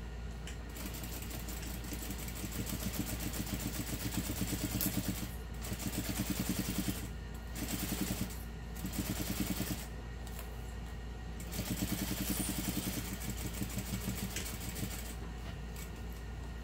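Juki industrial sewing machine stitching a seam in about five short runs, starting and stopping, its needle making a rapid, even clatter over a steady low hum.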